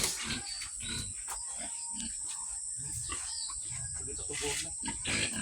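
Pigs grunting while a boar mates with a sow, over a steady high-pitched drone.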